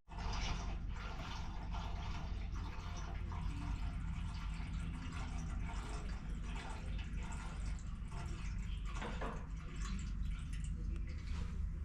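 Diesel fuel trickling and dripping from a nearly empty fuel container over a steady low hum.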